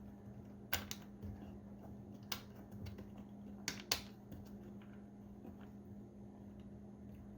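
Sharp plastic clicks and taps of a small door-panel trim cover being angled in and pushed into place, about five distinct clicks spread over the first four seconds, over a faint steady hum.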